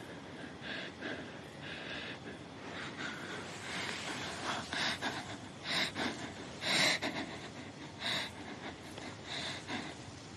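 A person breathing audibly in soft, uneven breaths or sniffs, about one a second, a few stronger ones around the middle.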